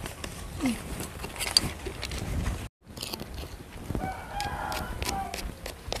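A rooster crows once, a call a little over a second long, about four seconds in. Earlier there are a few sharp clicks and a brief child's voice.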